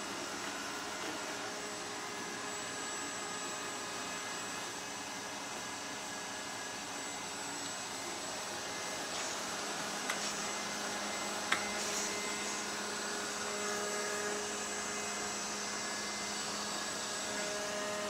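Laresar Evol3 robot vacuum running: a steady whir of its suction fan with thin high whines over it, and two faint clicks a little past the middle.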